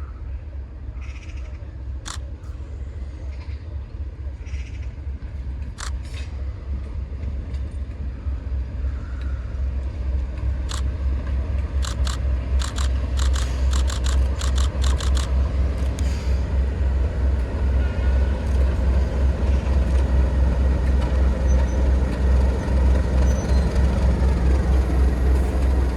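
Heavy diesel locomotive engine throbbing as it approaches, growing steadily louder, with a quick run of sharp clicks about halfway through.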